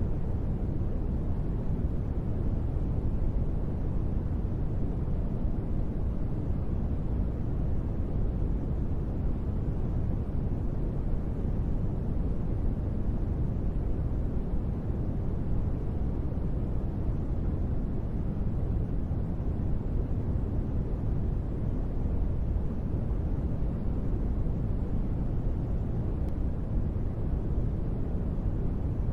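Steady white noise played as a sleep aid, unchanging throughout. It sits mostly in the low end, so it sounds like a deep, even rumble with little hiss on top.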